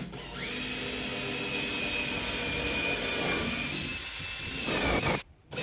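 Power drill with a countersink bit running steadily, countersinking a screw hole with a high, even whine that stops about five seconds in.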